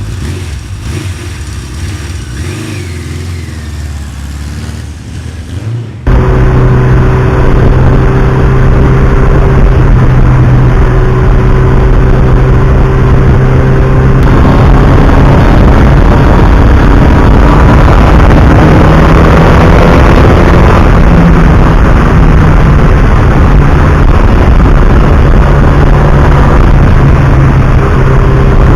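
Motorcycle engine running while under way, a steady engine note with small rises and falls in pitch under heavy wind rush. About six seconds in the sound suddenly becomes much louder.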